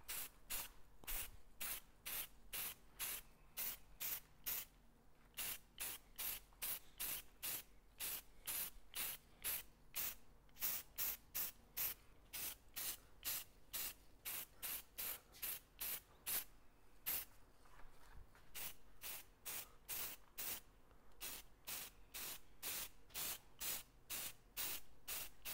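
Aerosol can of silver spray paint spraying in short hissing bursts, about three a second, with a few brief pauses.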